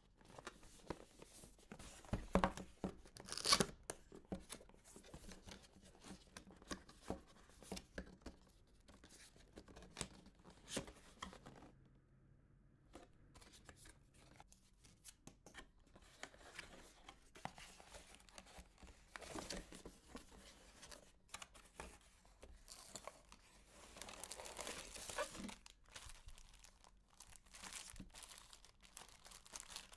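Cardboard packaging being opened by hand: flaps and the insert scraping, clicking and rustling in short bursts. Near the end comes a longer crinkling of plastic wrap around the paperwork.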